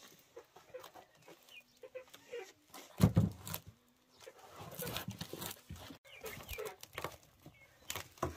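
A stack of dry flatbreads is set down on a cloth with a heavy thump about three seconds in. It is followed by rustling of the cloth and crackling of the crusty bread as the stack is pressed and handled.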